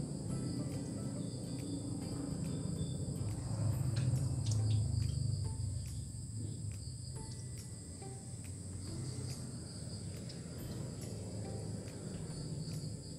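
Crickets chirring steadily at night, a constant high trill in two bands, over a low rumble that swells about four seconds in.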